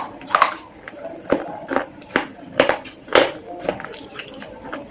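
Slate pencil being bitten and chewed: a run of sharp, dry crunches, about one to two a second.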